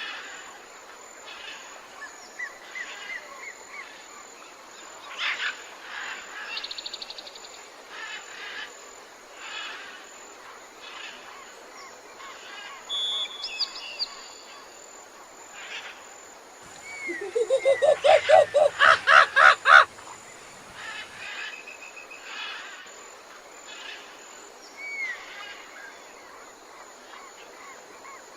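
Outdoor wildlife chorus of scattered bird chirps and whistles. About two-thirds of the way through comes a loud run of about a dozen rapid calls that climb in pitch over roughly three seconds.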